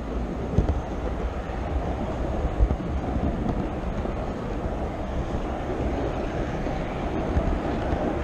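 HO scale model train rolling along its track, heard from the car carrying the camera: a steady rumble of wheels on rail with a few low knocks.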